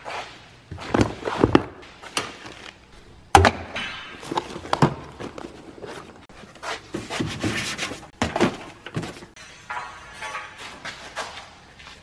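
Tools, parts and shop clutter being picked up, moved and set down on a workbench and tool cart during a clean-up: a run of knocks, clatters and rattles, the loudest a sharp bang about three seconds in.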